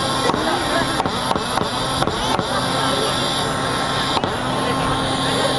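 Crowd of onlookers chattering, with a few scattered sharp clicks.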